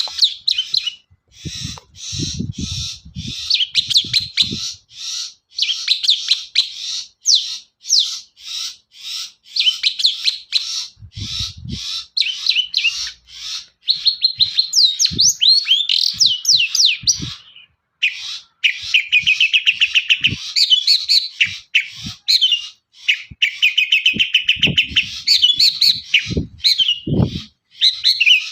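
Long-tailed shrike (cendet) in full, non-stop song: a rapid run of scratchy chattering notes and quick rising and falling whistles, with stretches of fast trills in the second half, typical of the species' song with mimicked calls of other birds. A few short low knocks sound now and then.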